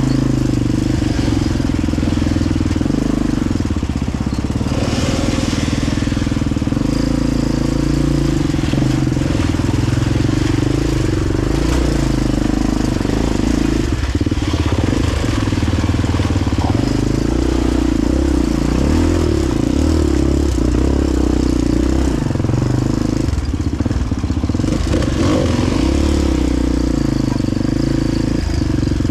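Dirt bike engine running on an off-road trail, its pitch rising and falling as the throttle is worked.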